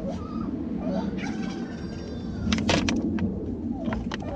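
Poultry calling, with a few sharp clicks about two and a half seconds in.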